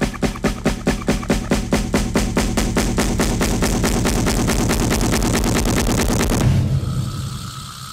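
Background music with a fast, even drum beat that breaks off about six and a half seconds in, leaving a sustained chord that fades away.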